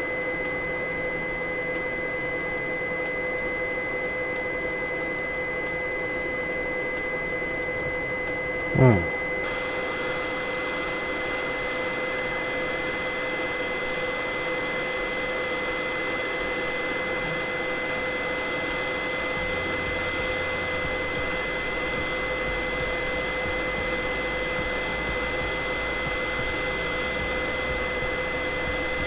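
Hot-air rework station blowing steadily, a rushing hiss with a steady high whine, as it heats a laptop motherboard to reflow a USB-C power-delivery controller chip (TPS65988). About nine seconds in, one short loud sound glides down in pitch, and after it the hiss turns brighter.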